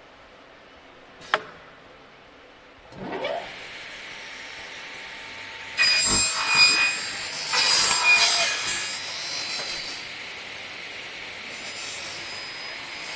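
A sharp click, then about three seconds in the V-notch cutting saw's motor spins up with a rising whine. From about six to nine seconds its blades cut a V-notch into a uPVC window profile, the loudest part, and the saw then keeps running more quietly.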